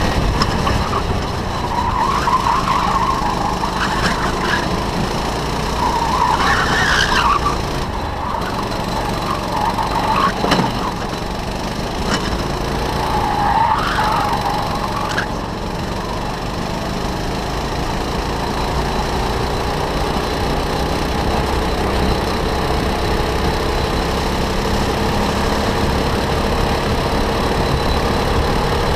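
Go-kart engine recorded on board the kart, running continuously through a series of corners with several short squeals from the tyres, then rising steadily in pitch as the kart accelerates down the straight.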